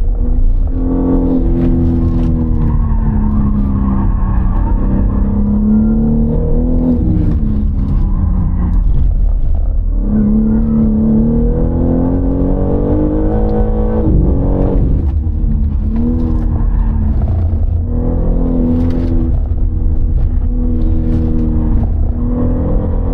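BMW M3 (G80)'s twin-turbo inline-six heard from inside the cabin under hard track driving, its pitch climbing repeatedly and then dropping sharply, over a steady low road rumble.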